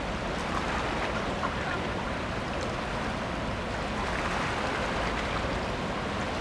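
Steady rush of water churned up by the ferry MV Coho's propellers, over a low rumble, as the ship manoeuvres into its docking slip.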